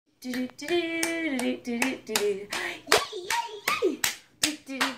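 A short sung children's tune with hand claps playing from the plush rocking elephant's built-in sound unit. The melody moves in held, stepped notes, and the phrase starts over near the end.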